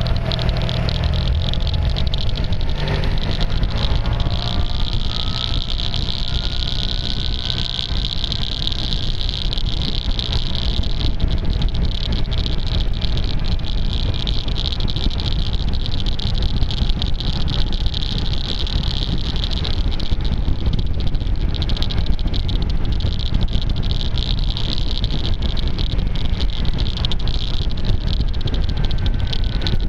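Wind noise rumbling over a tape-covered camera microphone on a moving maxi-scooter, with a strange clicking from the tape throughout. Under it, an engine note rises in pitch a few seconds in as the scooter accelerates.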